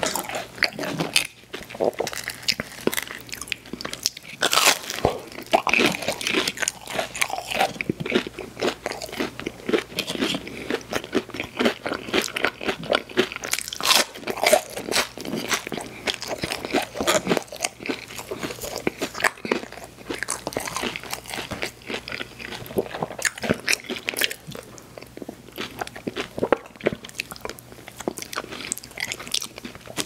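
Close-up mouth sounds of someone biting and chewing crispy fried food (chicken nuggets and Cajun fries), with dense, irregular crunches throughout.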